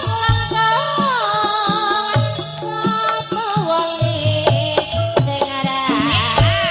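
Javanese campursari music in pelog tuning: a sung melody with wavering, ornamented pitch bends over ensemble accompaniment and a steady hand-drum beat.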